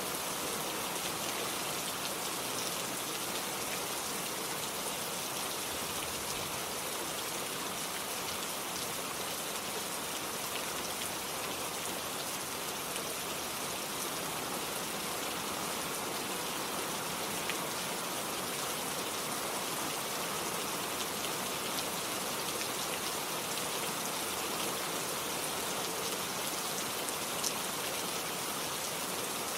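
Steady rain falling, an even hiss with an occasional sharper drop tick.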